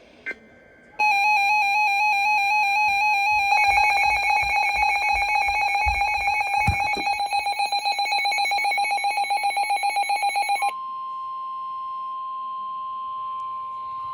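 Weather radio going off for an emergency alert. A loud electronic alarm warbles, then turns into rapid pulsing beeps. About ten seconds in, the broadcast's steady single-pitch 1050 Hz warning alarm tone takes over, the signal that a warning, here a severe thunderstorm warning, is about to be read.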